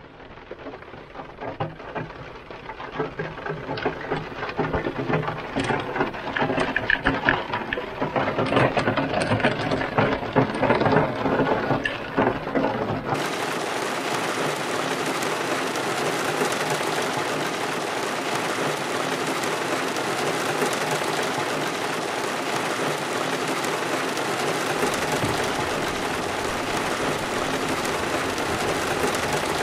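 Heavy rain on a parked car, heard from inside: scattered drops pattering and ticking on the roof and glass, growing heavier over the first dozen seconds. About halfway through it changes abruptly to an even, steady downpour hiss.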